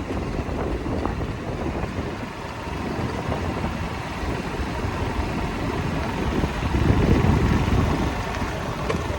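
A vehicle running as it drives along, a steady low rumble that swells about seven seconds in.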